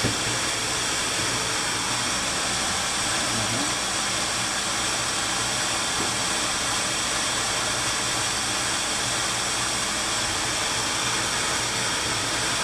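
Steady machine noise: a continuous rushing hiss over a low hum, with faint steady high tones, unchanging throughout.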